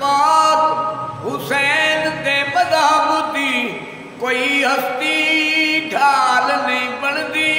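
A man singing without instruments in long phrases that slide and waver in pitch, with a short breath between phrases.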